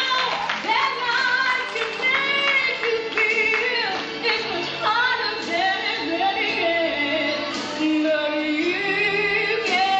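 Music with a woman singing a gliding melody over the accompaniment.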